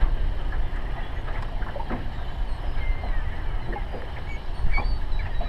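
Steady low rumble of wind and water around a small open boat, with a few faint short bird calls from gulls overhead.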